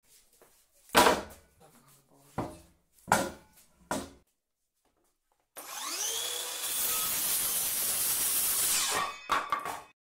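Several sharp wooden knocks, the loudest about a second in, then a Greenworks cordless circular saw spinning up with a rising whine. Its blade cuts through a wooden board for about three seconds and stops shortly before the end, followed by a couple of clunks.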